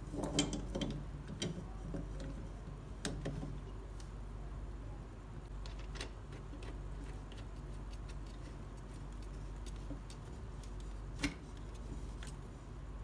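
Clicks and taps of plastic and metal toy-telescope parts being handled and fitted together: a cluster in the first second, then single sharp clicks about three, six and eleven seconds in, over a steady low hum.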